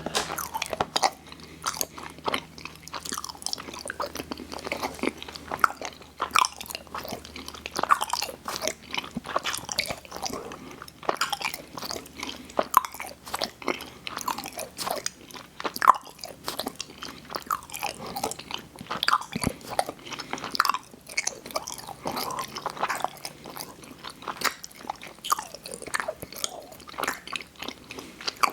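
Close-miked chewing and biting of sweets: a dense, irregular run of small crisp clicks and crunches.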